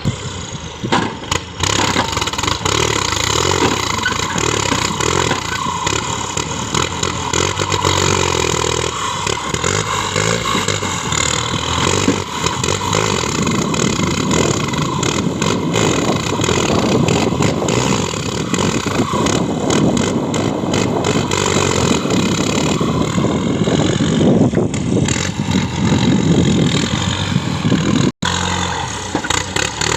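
An engine running steadily under load, its revs wavering up and down, with a brief break near the end.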